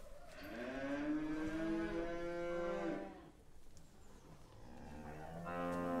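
Cattle mooing: one long moo lasting nearly three seconds, then a second moo starting about five seconds in.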